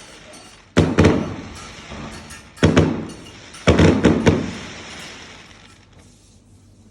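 Fireworks going off: about six sharp bangs in quick clusters, each dying away over a second or so.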